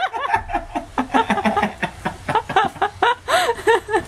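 People laughing hard, in quick repeated bursts of high-pitched laughter.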